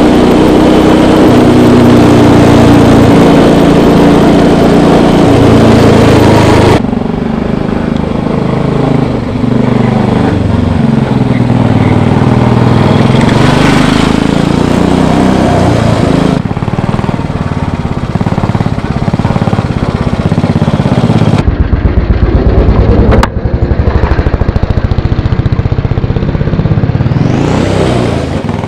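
Small engine of a 1952 Guiller scooter running while ridden, its pitch rising and falling with the throttle, heard across several cut-together shots. Near the end the engine note climbs steeply.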